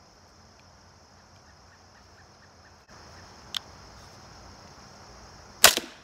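Barnett Whitetail Hunter crossbow shot with bare split limbs and no limb dampeners: one pretty loud, sharp crack from the string and limbs about five and a half seconds in. A single small click comes about two seconds before it. Crickets chirp steadily behind.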